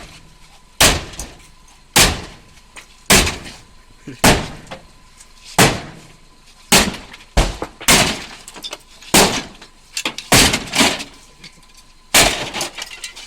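Sledgehammer blows on a Renault Laguna's bodywork and glass, about one heavy strike a second, with glass cracking and breaking.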